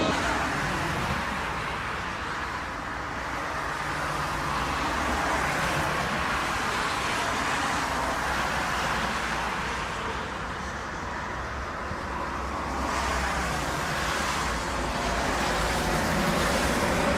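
Jet airliner engines heard from the ground as a steady rushing noise that swells and eases twice.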